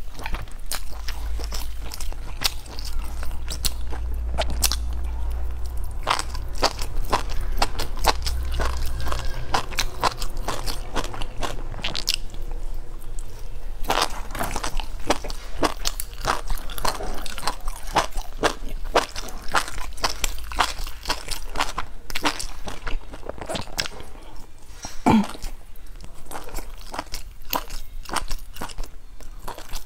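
A person biting and chewing grilled skewered food, with many sharp crunches and wet chewing throughout. A low rumble sits under the first several seconds.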